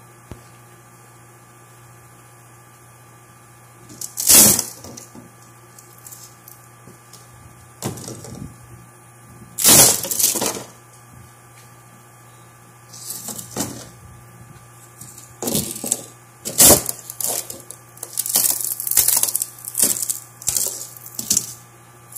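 Thin scrap wood panels being broken up, cracking and splintering in a series of sudden loud breaks. The breaks come a few seconds apart at first and bunch together near the end, over a steady low hum.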